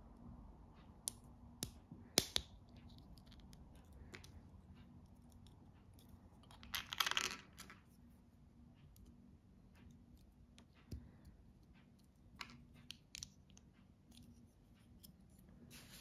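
Small plastic minifigure parts clicking and tapping as they are handled and pressed together by hand, with a few sharp clicks early on and a few more later, and one brief rustling scrape about seven seconds in.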